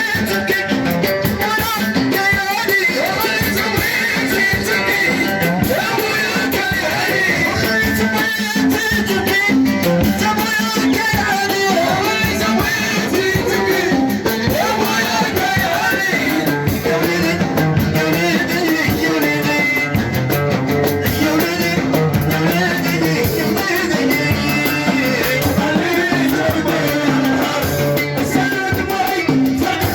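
Moroccan chaabi music played without a break: singing over plucked strings and drums.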